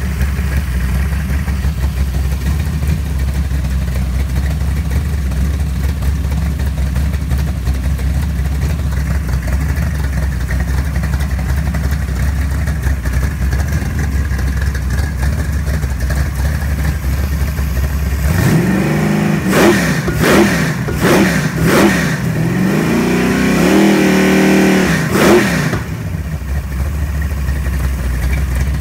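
Big-block Chevrolet 482 cubic-inch stroker V8 idling steadily. About two-thirds of the way through it is revved several times, each rev climbing and falling back, before it settles back to idle.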